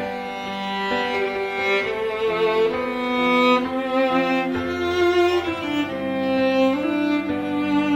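Instrumental string music, violin with cello, playing a slow melody of held notes.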